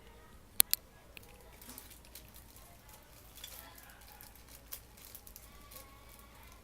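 Two sharp clicks in quick succession, then light tapping and crinkling as plastic accessory parts and packaging are handled.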